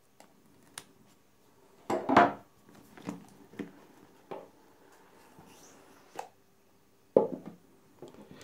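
Handling a cardboard smartphone box: a string of knocks and taps, the loudest about two seconds in and another near the end, with a soft scraping as the outer sleeve comes off and the inner box slides out.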